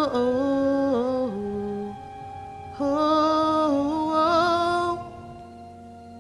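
A human voice singing a wordless, howl-like melody in two long phrases, stepping between held notes with a little vibrato in the second, over a soft sustained musical backing.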